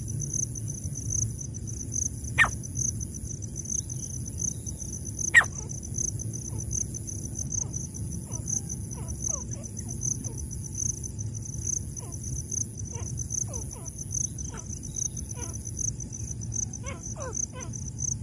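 A francolin gives two short, sharp call notes, about two and a half and five and a half seconds in. Fainter short chirps follow in the second half. Insects trill steadily in a fast pulsing rhythm throughout.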